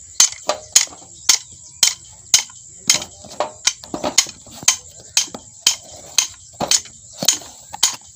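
Repeated sharp metallic taps and knocks, about two a second and slightly uneven, from a hand tool working on a Peter single-cylinder diesel engine that is being dismantled.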